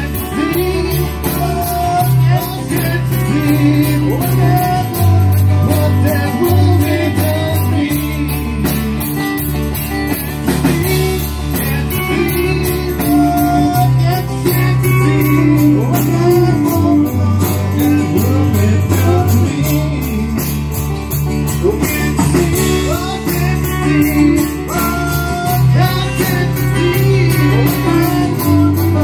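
Live rock band playing: electric guitars, low bass notes that change every couple of seconds, drums keeping a steady beat on the cymbals, and a man singing.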